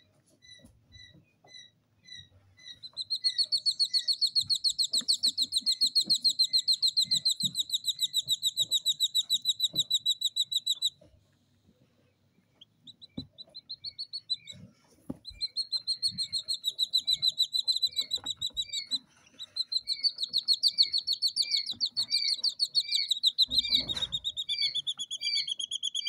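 Jungle bush quail chicks peeping: a few spaced peeps, then long runs of rapid, high, evenly repeated peeps that break off for a second or two about halfway. There are soft knocks of handling underneath, and one louder knock near the end.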